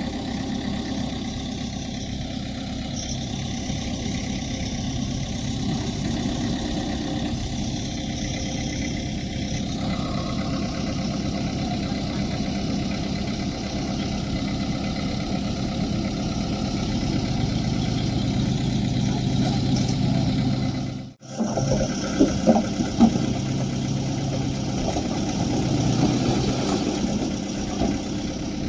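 Diesel engine of earthmoving machinery running steadily at low revs. The sound breaks off briefly about two-thirds through and is followed by a few sharp knocks.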